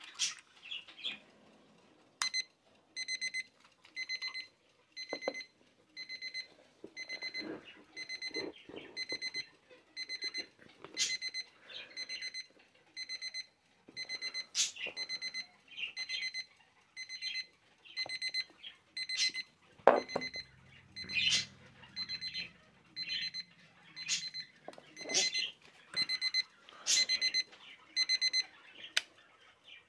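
Electronic alarm beeper of an IKEA quartz travel alarm clock going off about two seconds in: a high-pitched beeping in quick bursts, about one burst a second, that stops near the end. Sharp clicks and chirp-like sounds break in now and then.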